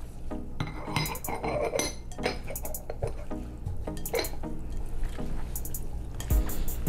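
Gloved hand kneading wet, lemon-marinated beef kelaguen in a glass bowl: squishing of the meat and juice, with repeated sharp clicks and taps of fingers and a ring against the glass.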